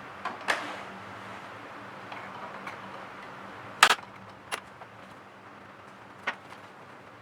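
A few sharp clicks and knocks of small hard objects being handled, the loudest a little under four seconds in, over a steady low hum.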